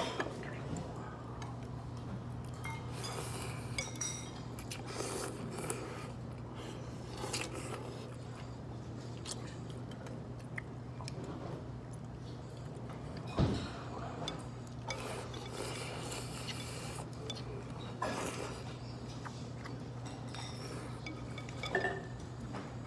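Ceramic soup spoon clinking and scraping against a ceramic soup bowl, with scattered light knocks. The sharpest knock comes about halfway through. A steady low hum runs underneath.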